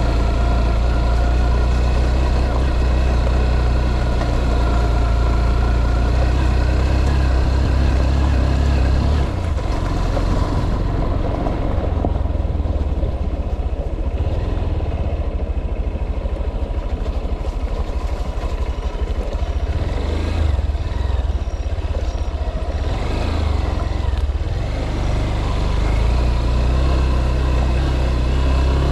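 A motor vehicle's engine runs steadily, with a low hum that eases off about nine seconds in and comes back strongly near the end.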